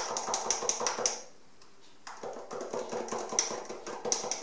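Glass of iced coffee being stirred: quick light clinks of the stirrer against the glass, a pause of about a second, then slower clinking again. The stirring mixes the coffee foam down into the milk.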